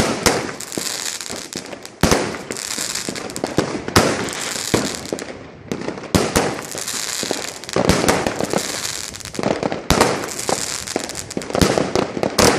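Many fireworks and firecrackers going off at once: a dense run of sharp bangs, some overlapping, over stretches of crackling fizz.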